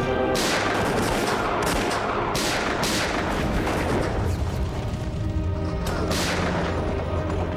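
Rifle shots, about five, four in the first three seconds and one more about six seconds in, each ringing out, over music with held chords and a low rumble underneath.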